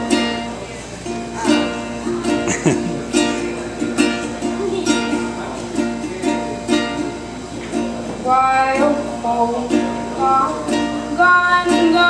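Ukulele strummed in a steady rhythm, opening a song. A woman's singing voice joins over the strumming about two-thirds of the way in.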